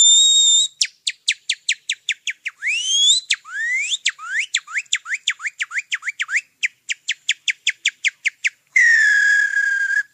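A man whistling through his fingers, making chirping, bird-like calls. A held high whistle opens, followed by a fast run of short rising chirps at about four a second, with a few longer upward glides mixed in. A lower held whistle comes near the end.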